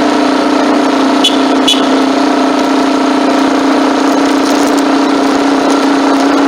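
Motorcycle engine running at a steady pitch, heard from a phone mounted on the bike, with two short sharp clicks about a second and a half in.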